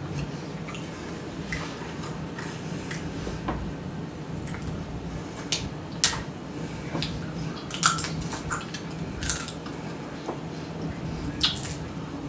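Close-up eating sounds of a seafood boil: crab shells cracking and being picked apart by hand, with wet squishing and scattered sharp clicks, several louder ones in the second half.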